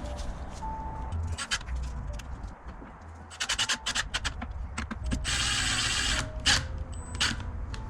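Screws being driven to close up a speaker box: a run of clicks and taps, then a noisy burst of about a second just past the middle.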